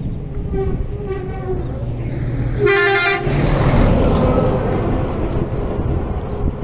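A vehicle horn gives one loud blast about two and a half seconds in, after a fainter toot about a second in. Then a heavy Mercedes-Benz dump truck goes past close by, its engine and tyres loud at first and easing off as it moves away.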